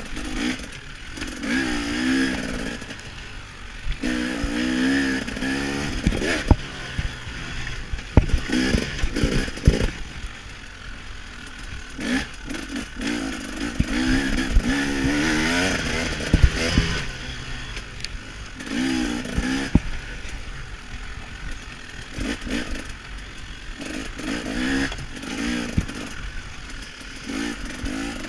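KTM 300 XC-W single-cylinder two-stroke dirt bike engine revving up and falling off again and again under racing throttle, with sharp knocks and clatter as the bike hits bumps.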